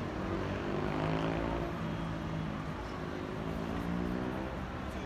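Engine of a passing motor vehicle: a steady drone whose pitch shifts slowly, dying away near the end, over a low hum of city traffic.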